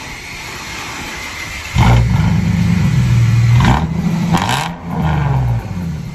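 Infiniti coupe's V6 engine on a loud aftermarket exhaust, idling, then revved hard about two seconds in and held up. It dips briefly and is revved again before falling back to idle near the end.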